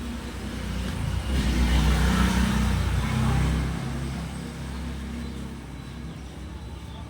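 A motor vehicle's engine passing close by: it swells about a second in, is loudest for a couple of seconds, then fades away.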